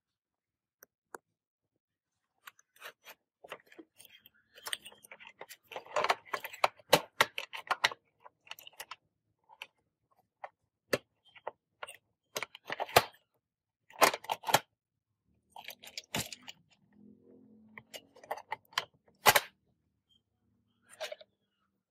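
Irregular clicks, taps and light clatter of small hard parts being handled, with a brief scraping sound about two-thirds of the way through.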